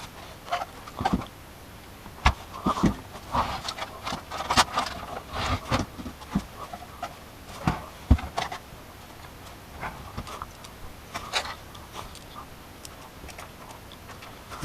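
Irregular clicks, knocks and rustling of hardware and packaging being handled by hand, with the busiest stretch in the middle.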